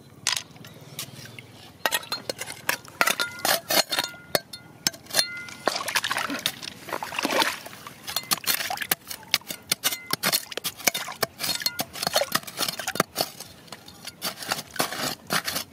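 Metal hand trowel digging into wet gravel and stones, with rapid repeated scrapes and clinks of the blade against rock. It starts a moment in.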